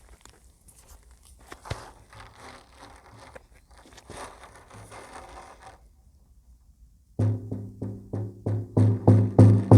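Ocean drum: first the beads shifting faintly across the inside of the drumhead as a soft, scattered rattle. After a short pause, about seven seconds in, the head is struck in a steady beat of about three strokes a second, each a low drum boom with the beads buzzing against the skin.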